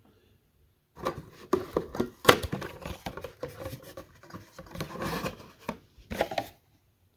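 Cut-open oil filters being handled: the metal cans and inner parts knock, scrape and rub together in an irregular run of clicks and rustles. The sharpest knock comes about two seconds in.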